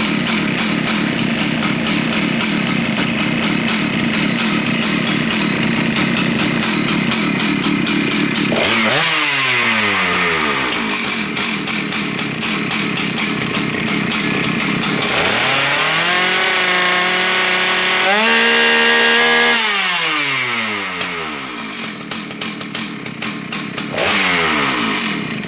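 Husqvarna 2100 XP two-stroke chainsaw running, freshly fitted with a rebuilt carburetor and unlimited jet. It idles, revs up briefly after about nine seconds, then is held wide open for about four seconds around the middle, climbing once more before dropping back to idle.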